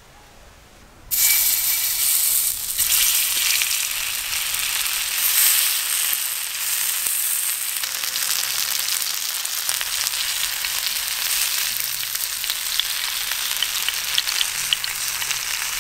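Paneer tikka skewers frying in oil on a hot tawa griddle: a steady sizzle that starts suddenly about a second in.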